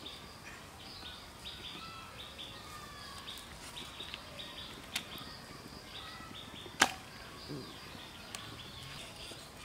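Raw chicken being cut apart by hand on a bonti (a fixed upright curved blade), with a small click about five seconds in and one loud sharp crack about seven seconds in; birds chirp faintly in the background throughout.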